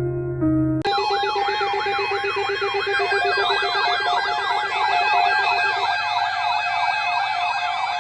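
Electronic siren-style emergency alert tone: layered yelping tones sweeping rapidly up and down, about three sweeps a second, over steady held tones. It cuts in suddenly about a second in, replacing electric piano music.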